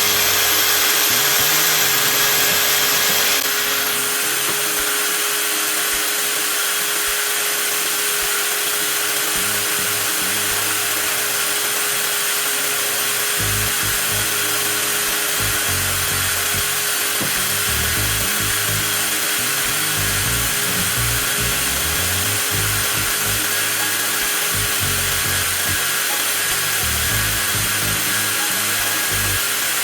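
TOTAL 20V cordless angle grinder running continuously at full speed on battery power, a steady high whine with hiss that drops slightly in level about three seconds in.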